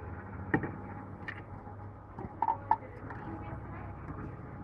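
A few sharp clicks and knocks as a plastic drink bottle is handled and pushed into the round intake of a reverse vending machine, over a steady low hum.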